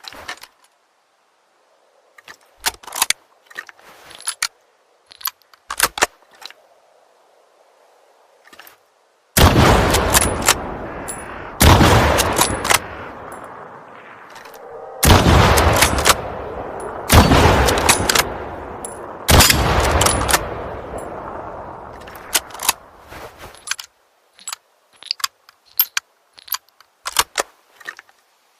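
Mosin-Nagant three-line rifle sound effect: a run of sharp metallic clicks of the action being worked, then five loud shots about two seconds apart, each with a long echoing tail, followed by more clicks.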